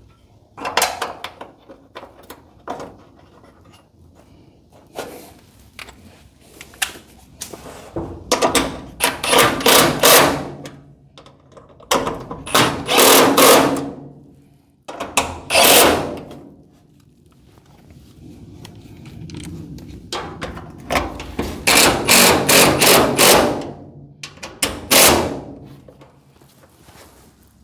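Hammer striking metal garage door hinge parts, knocking sleeves and bearings into place, in runs of several quick strikes with pauses between.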